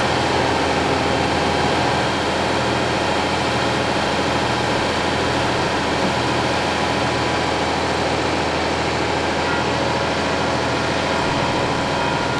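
Heavy engine of a fire-brigade turntable ladder truck running steadily, a deep even drone.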